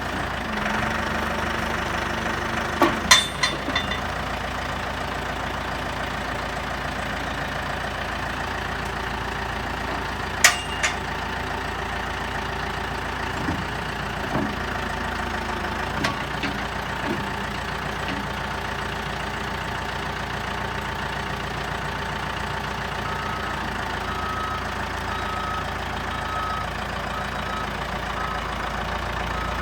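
Turbocharged diesel engine of a Caterpillar backhoe running steadily, with a few sharp knocks: a quick cluster about three seconds in, a single loud one about ten seconds in, and fainter ones a little after.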